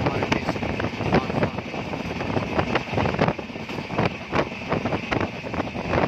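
Moving vehicle running along, with a steady rumble and wind on the microphone and frequent irregular rattles and knocks.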